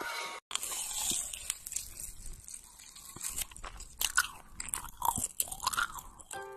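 Close-miked crunching and crackling of crispy fried dough balls being pulled apart, bitten and chewed, in irregular crackles.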